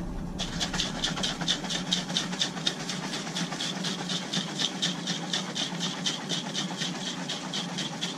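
Stainless steel shaker bottle with pre-workout powder and Monster energy drink being shaken hard: a fast, even swishing rhythm of about five shakes a second, starting about half a second in, over a steady low hum.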